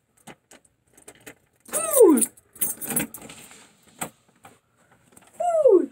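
Clicks and rustling from a handheld phone being moved about. Two loud short squeals fall steeply in pitch, each lasting about half a second, about two seconds in and again just before the end.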